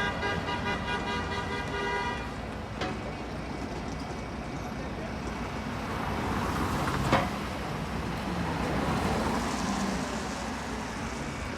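A vehicle horn holding one steady note for about two and a half seconds over street traffic noise, followed by a vehicle passing. Two sharp knocks are heard, one just after the horn stops and one about seven seconds in.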